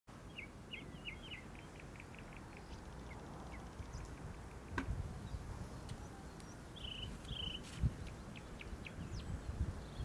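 Small songbirds chirping: a quick run of short chirps in the first few seconds, then scattered chirps and a few short downward-sliding notes, over a steady low background rumble. A soft low thump comes about five seconds in and another near eight seconds.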